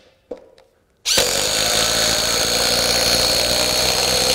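DEWALT Atomic compact 20V impact driver driving a long screw into a wooden board. After a few light clicks, the driver starts about a second in and hammers steadily under load.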